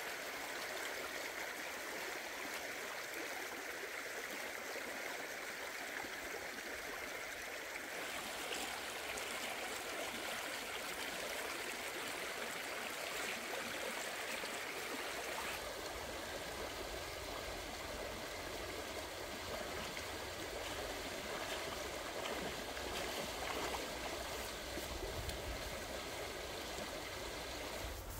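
Shallow stream running over rocks: a steady rush of flowing water.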